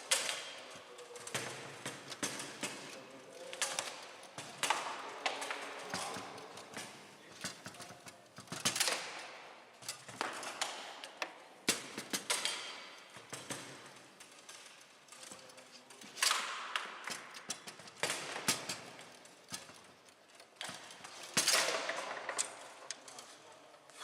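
Foosball being played on a Bonzini table: sharp, irregular clacks of the ball being struck by the players' figures and knocking against the table walls, with rods and handles rattling in between.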